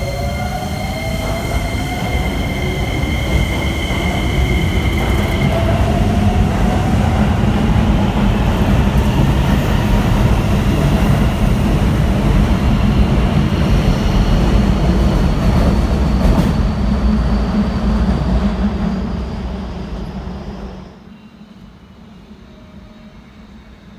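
Electric commuter train running past on the rails: a loud, steady rumble of wheels with motor whines slowly rising in pitch as it gathers speed. The sound dies away sharply about 21 seconds in.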